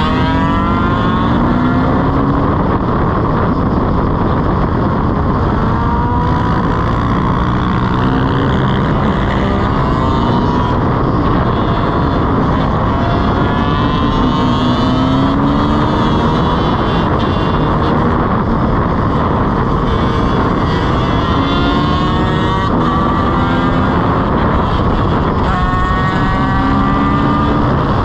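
Dirt bike engines running at highway speed, revving up in repeated rising glides as they accelerate and shift, over a steady rush of wind.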